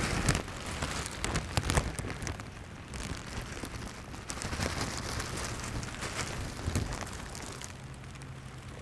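Steady rain falling, with scattered sharp clicks and knocks, most of them in the first two seconds.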